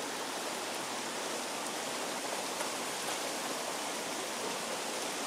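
Shallow, stony forest stream flowing, a steady rushing of water.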